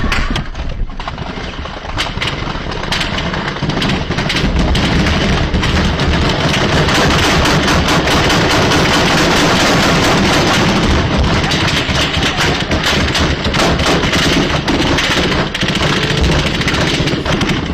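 Heavy, sustained automatic gunfire, with rapid shots running together almost without a break.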